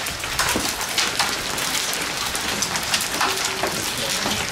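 A heavy shower pelting down on surfaces: a dense, steady hiss of falling drops with a few sharper single strikes scattered through it.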